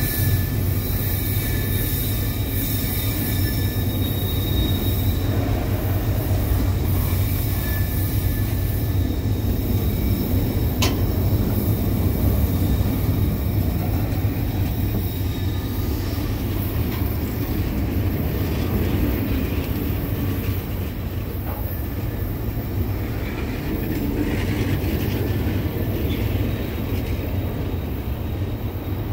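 Loaded freight hopper wagons rolling past on steel wheels with a steady low rumble. Thin, high wheel squeal is heard through the first few seconds, and there is one sharp click about eleven seconds in.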